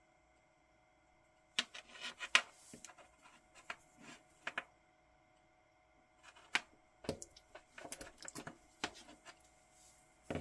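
Small clicks and light scrapes of a spring bar tool working the spring bars of a watch's rubber strap out of the lugs, in two spells of handling with a short pause between them.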